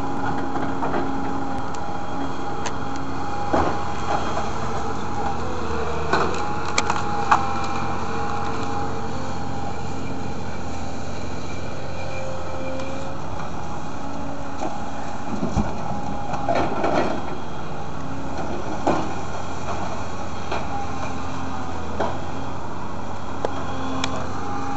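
Daewoo 220LC-V excavator's diesel engine running steadily while it works. Scattered cracks and knocks come from brush and branches snapping and dropping into a dump truck bed as the bucket loads them.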